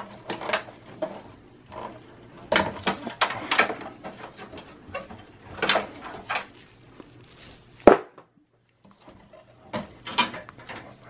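Gloved hands handling power cables and plastic connectors inside a Dell OptiPlex 7050's steel tower case: scattered rustles, clicks and light knocks against the metal, with one sharp knock about eight seconds in.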